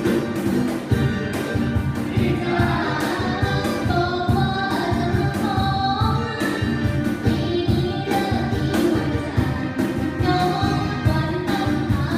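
Live band playing a Thai song over a steady drum beat and bass, with a vocal melody coming in about two and a half seconds in.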